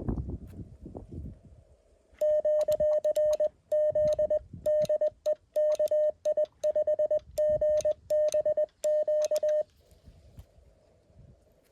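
Morse code from a Mountain Topper QRP CW transceiver: a single steady tone keyed on and off in dots and dashes. It starts about two seconds in and stops a couple of seconds before the end.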